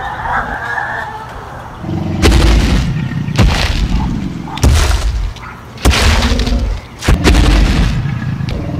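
Giant dinosaur footsteps, a film-style sound effect: five heavy booming stomps about a second and a quarter apart, starting about two seconds in.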